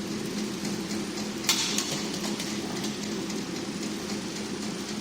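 Incense-stick packing machine running on jog, its drive humming steadily as it feeds the wrapping film through the wheels, with one sharp clack about a second and a half in.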